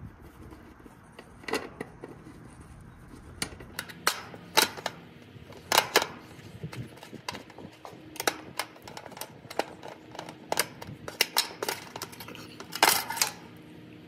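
Irregular metallic clicks and clinks of a screwdriver working the strap and nut that hold an air conditioner condenser's dual run capacitor, as the capacitor is freed and lifted out of its bracket. A cluster of louder clinks comes near the end.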